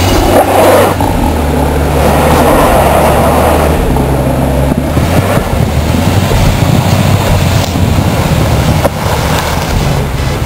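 A vehicle engine running steadily, with a loud rushing noise over it.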